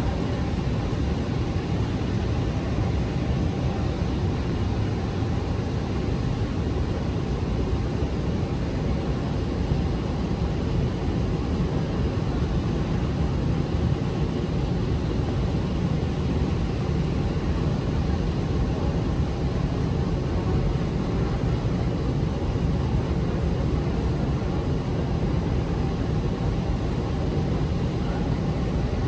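Steady low rumble of a long moving walkway running in an underground metro station, with a faint steady hum over it.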